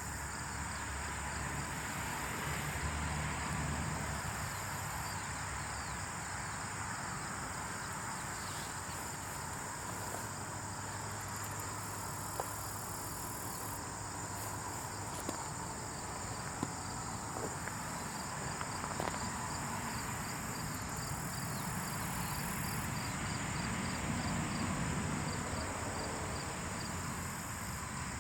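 Steady high-pitched insect chorus with a rapid run of cricket-like chirps partway through, over a low rumble and a few faint ticks.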